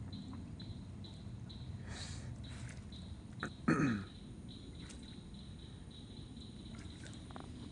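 A feral hog gives one short, low grunt that falls in pitch, about halfway through. A high, even chirp repeats about two or three times a second in the background.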